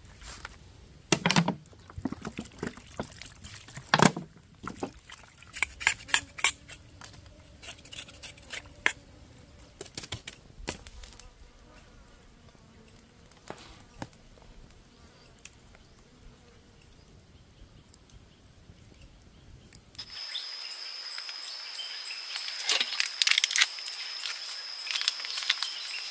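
Scattered sharp knocks and clicks, then about twenty seconds in an abrupt change to a steady, high-pitched insect drone with crackling clicks over it.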